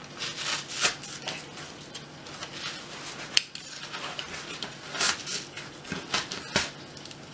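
Craft knife blade drawn through thick high-density upholstery foam: irregular scratchy rasps with a few sharp clicks as the blade drags and snags in the foam.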